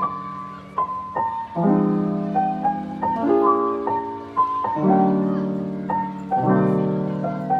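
Background piano music: a slow, gentle piece with a low chord struck about every one and a half seconds under a higher melody.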